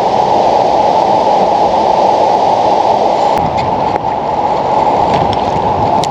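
Fast-flowing river water rushing steadily, a loud even noise.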